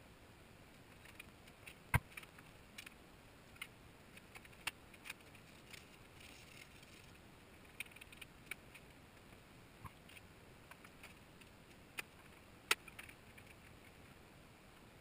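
Scattered light clicks and taps of metal parts and tools being handled on a steel welding table, with two sharper knocks, one about two seconds in and one near the end.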